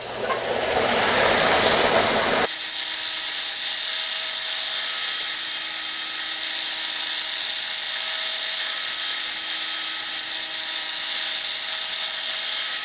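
Electric belt sander running, taper-sanding a small wooden pattern rib. The sound is louder and rougher for about the first two and a half seconds, then changes suddenly to a steady run with a constant motor whine.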